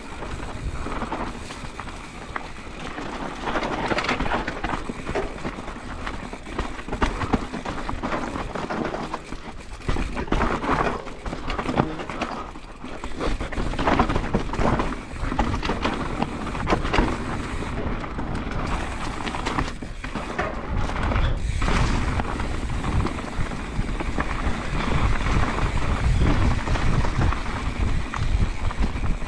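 Mountain bike ridden fast down a rocky dirt trail: tyres crunching over dirt and loose stones, with the bike rattling and knocking over bumps. Wind rumbles on the microphone, stronger in the last third.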